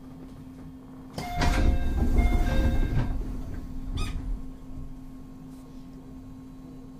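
Air-operated sliding doors of a JR Central 211 series 5000 EMU closing: a sudden rush of air and sliding rumble with a short chime of stepped tones over it, ending in a thud about four seconds in. A steady low hum runs underneath.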